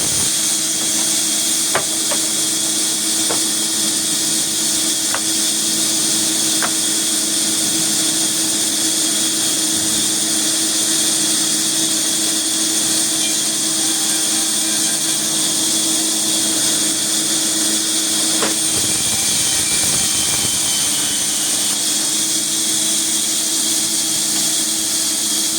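Sawmill machinery running steadily, a constant motor-and-blade noise with a high hiss, broken by a few sharp clicks.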